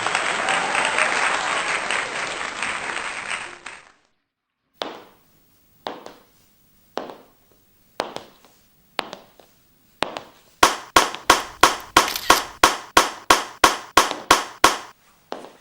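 Audience applauding, cut off suddenly about four seconds in. Then sharp high-heel footstep clicks follow, about one a second at first, then a quick run of about fifteen steps.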